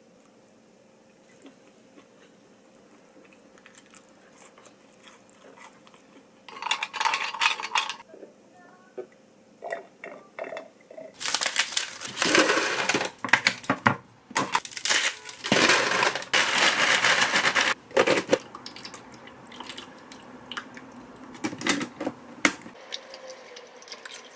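Ice cubes being cracked out of a plastic ice tray and tipped into a plastic storage bin: a run of sharp cracks and clattering cubes, loudest through the middle.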